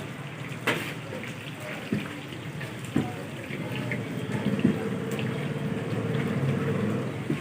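Hot oil sizzling steadily in a wok as namak pare dough deep-fries, with a few short clicks and knocks and a faint steady hum that comes in about halfway.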